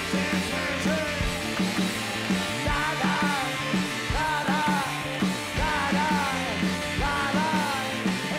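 Rock music soundtrack with a steady beat and a gliding, bending lead line.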